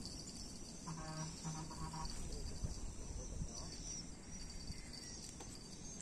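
Insects chirring steadily in a high band, over a low rumble of wind noise. A faint voice is heard briefly about a second in.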